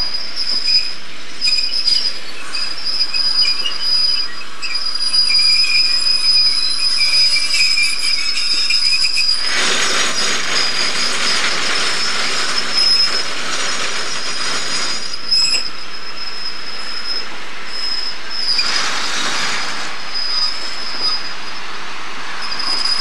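Passenger coaches rolling slowly past on the rails, their wheels squealing in a steady high tone. About ten seconds in, a louder rush of wheel and truck rumble and rattle lasts about five seconds, and a shorter one comes about a second long near the end.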